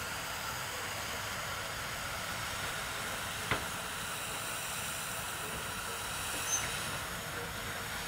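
Steady hiss of a fire hose's high-pressure water stream, fitted with a 1⅛-inch nozzle, spraying out and falling as spray on the water. There is a single sharp click about three and a half seconds in.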